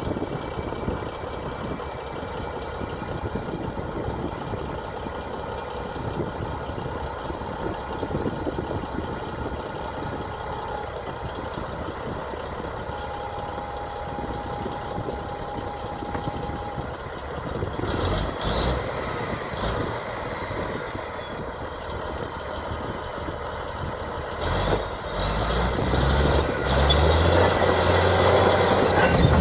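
Diesel engine of a LiuGong B230 crawler bulldozer running, with a few knocks partway through. Near the end the engine note rises and gets louder as it revs up.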